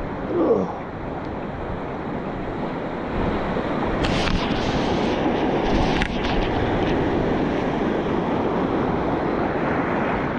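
Ocean surf washing up the beach with wind buffeting the microphone, growing louder about three seconds in, with a wave breaking and hissing up the sand between about four and seven seconds. A short falling cry about half a second in is the loudest moment.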